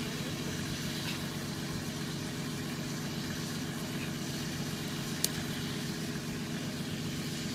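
Nissan Patrol's engine idling steadily while the 4x4 stands still, with one short sharp click about five seconds in.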